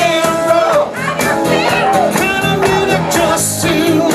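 Rock music with a singing voice, guitar and a steady beat, playing loudly.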